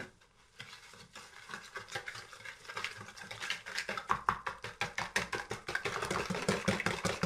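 Hand-held wire balloon whisk beating eggs and sugar in a plastic bowl: quick, even swishing strokes, several a second, starting about half a second in and growing louder and steadier after about two seconds.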